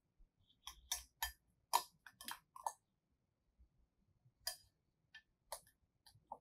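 Metal spoon clinking and scraping against a ceramic bowl while stirring a sauce: irregular light clicks in small clusters, with a short pause about halfway through.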